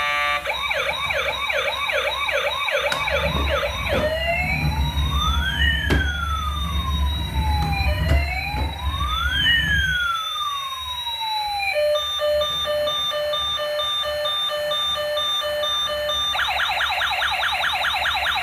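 Electronic siren running through its modes: a fast yelp at first, then a slow rising-and-falling wail over a low rumble, then a pulsed beeping tone from about twelve seconds in, and the fast yelp again near the end.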